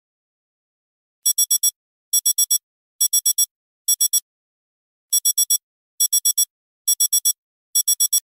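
Electronic alarm-type beeping: high-pitched beeps in quick groups of about four, roughly one group a second, with a short break about halfway through.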